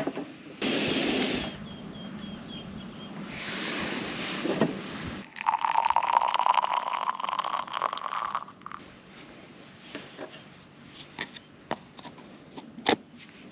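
Hot water poured from a gooseneck kettle into the small water tank of a portable hand-pump espresso maker, its pitch rising slowly as the tank fills. A brief loud hiss of noise comes just before, and light clicks and taps follow as the maker's parts are screwed back together, with one sharper click near the end.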